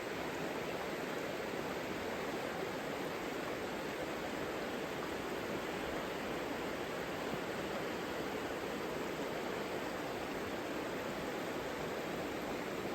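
Steady rushing of a flowing river's water, an even hiss-like rush with no change throughout.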